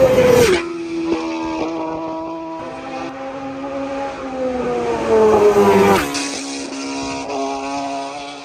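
Two Senior TT racing superbikes pass at full speed one after the other, each engine note dropping sharply in pitch as it goes by: the first about half a second in, the second about six seconds in after a rising approach.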